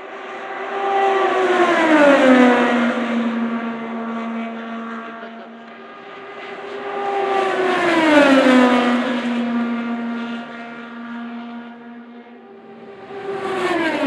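IndyCars with 2.2-litre twin-turbo V6 engines passing at speed, three in turn, each engine note dropping sharply in pitch as the car goes by. Between passes, engine sound carries on at a steady pitch.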